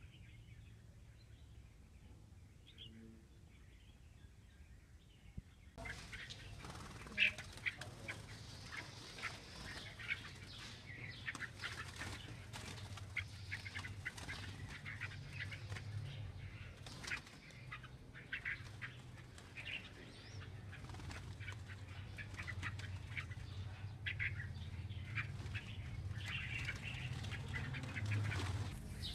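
A flock of caged red-whiskered bulbuls flapping and fluttering their wings as they fly between perches, with short calls mixed in. It starts suddenly about six seconds in and keeps up as a busy patter.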